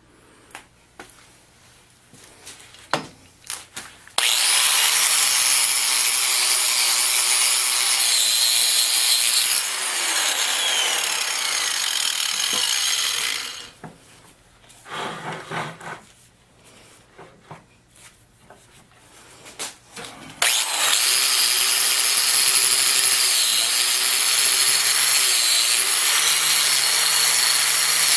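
A handheld power tool abrading metal in two long runs, its motor note wavering under load. Between the runs there are handling clicks and knocks.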